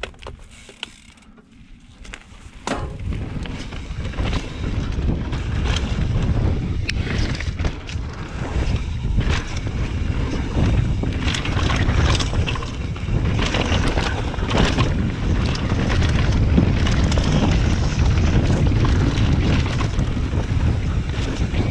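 Wind rumbling over a helmet camera's microphone as a mountain bike rolls down a dirt singletrack, with frequent sharp knocks and rattles from the bike and tyres over the bumps. The rumble comes up suddenly between two and three seconds in and stays loud.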